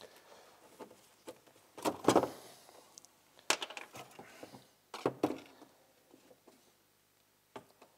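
Handling noise as objects are picked up and moved about: a few separate knocks and rattles, the loudest about two seconds in, then two more in the middle and a light click near the end.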